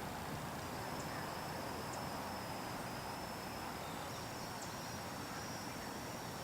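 Insects trilling steadily at a high pitch over a low, even background hiss.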